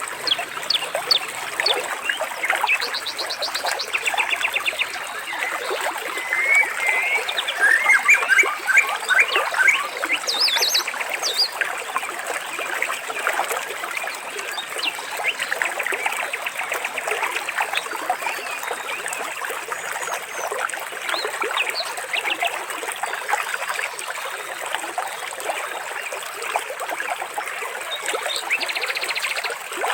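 Water trickling steadily, with birds singing over it in short chirps, gliding whistles and rapid trills that are busiest early on and again near the end.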